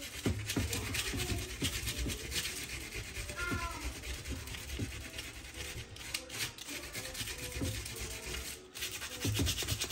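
150-grit sandpaper rubbed by hand in repeated short back-and-forth strokes over the painted MDF edge of a cabinet door, knocking down peeling paint. A brief high-pitched cry, rising then falling, comes about three and a half seconds in.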